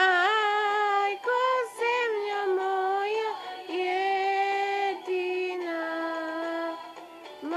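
A recorded Balkan ethno song playing through a laptop's speakers: a high female voice sings long, held, ornamented notes in phrases with short breaks between them and little accompaniment.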